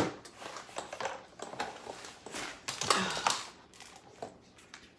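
Irregular clicking and rustling as a monofin's tight foot-pocket strap is handled and loosened by hand.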